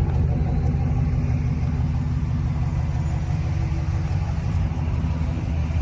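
Pickup truck's V8 engine idling steadily with a low, even rumble.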